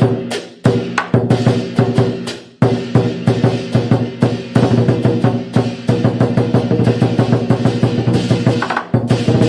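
Chinese lion dance percussion music: a drum beaten in fast, driving strokes, with two brief breaks in the first few seconds.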